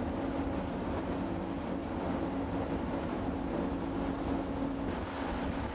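Steady drone of a large ferry's engines with a constant hum, heard from on board.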